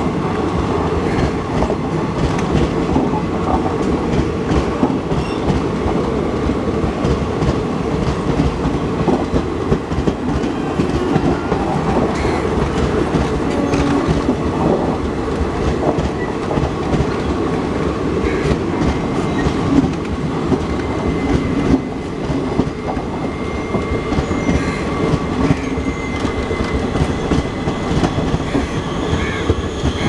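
Passenger coaches of an Indian Railways train rolling past: a continuous loud rumble of steel wheels on the rails, with a clickety-clack as the wheels cross the rail joints.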